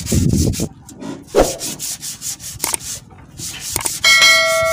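A rhythmic scratchy rubbing, about six strokes a second, with two short breaks. About four seconds in, a bright bell-like chime from a subscribe-button sound effect rings out and holds.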